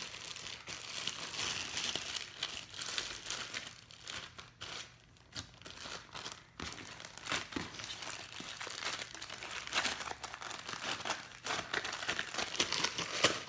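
Thick clear putty-like slime being stretched and squished by hand, giving dense irregular crackling clicks and pops, quieter for a few seconds in the middle.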